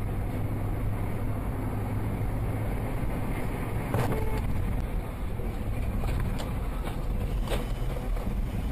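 Car driving: steady engine and road noise, with two faint clicks, one about halfway through and one near the end.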